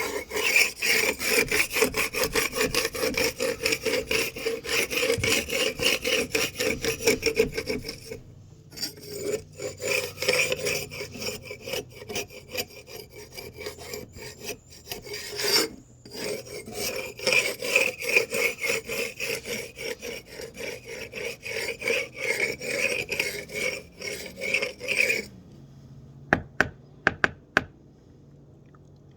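A hand tool scraping back and forth over a weathered cedar beam in quick repeated strokes, taking off loose paint chips before priming. There are two short pauses; the scraping stops about three-quarters of the way through, followed by a few sharp taps.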